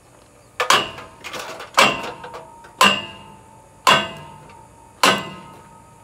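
Short-handled sledgehammer striking steel, about five blows a second apart, each ringing briefly: a new roller being driven into its mounting in a round baler's tailgate until it wedges tight.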